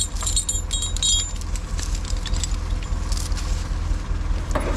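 Steel choker chains clinking and rattling as they are handled on the logs, mostly in the first second, over the steady low running of the LKT 81 Turbo skidder's engine.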